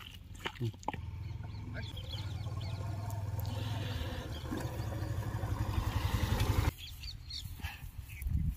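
A low motor rumble with a fast, even pulse grows steadily louder for several seconds, then cuts off suddenly. Birds chirp faintly over it.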